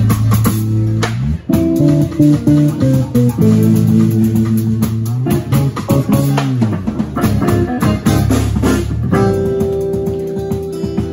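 A small live band playing an instrumental jazz arrangement, led by an electric bass line with sliding notes, with electric guitar and drums.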